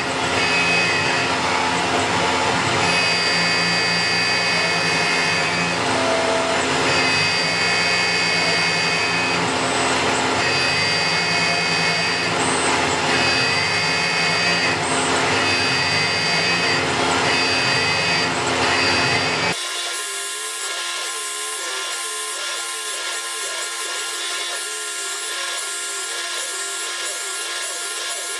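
CNC milling machine running and cutting metal: a steady whine with several held tones that come and go every few seconds. About two-thirds of the way through it switches abruptly to a thinner, higher machining sound.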